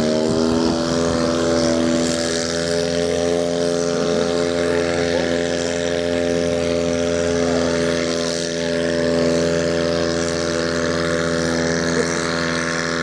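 Competition pulling tractor's engine held at full throttle during a pull, running at a steady high pitch without letting up.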